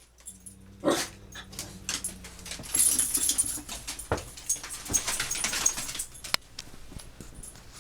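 A dog barks once about a second in, followed by a few seconds of scuffling and rustling noises.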